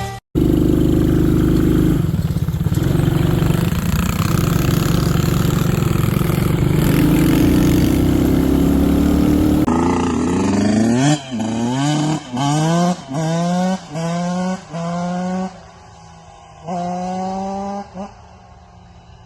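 Kawasaki KX65 two-stroke dirt bike engine running hard at a steady high speed for about ten seconds. After a cut it is revved in a string of about seven quick throttle blips, each rising in pitch and falling back, then drops to a low idle near the end.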